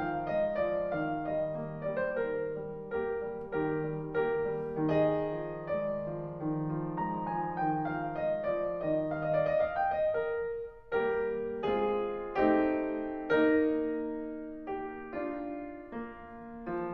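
Background piano music: a gentle run of single struck notes.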